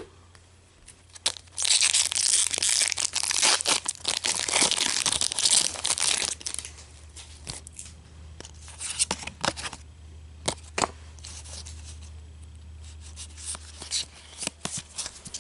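Pokémon booster pack's foil wrapper being torn open and crinkled for about five seconds, starting a second or so in, followed by scattered light clicks and taps as the cards are handled.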